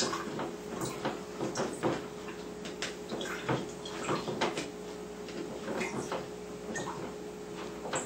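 A metal eye hook is screwed by hand through a peanut-butter jar's lid to bore a small air hole. It makes irregular small clicks, creaks and scrapes over a steady low hum.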